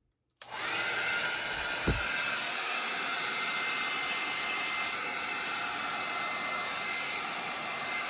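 Revlon hair dryer switched on about half a second in and running steadily on its high setting, a rush of air with a thin steady whine, blowing wet acrylic paint across a canvas for a Dutch pour. A brief low thump about two seconds in.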